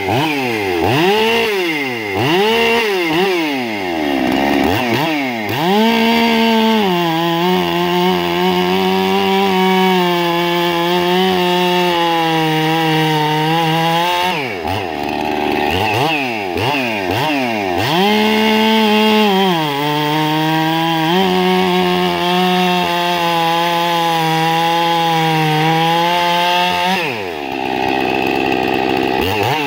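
Stihl MS660 chainsaw fitted with a Husqvarna 395XP piston and cylinder, tuned rich on the top end ("pretty fat on the top"). It is first revved in several quick blips, then held wide open through a long cut into a log. It is blipped again, makes a second long cut, and drops back down near the end.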